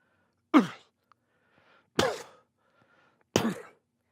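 A man grunting in pain three times, about a second and a half apart: short grunts that start sharply and fall in pitch, as if from blows.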